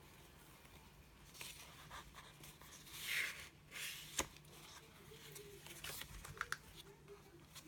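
Paper pages of a handmade scrapbook mini album being turned and handled: short, soft rustles, with a sharp click about four seconds in.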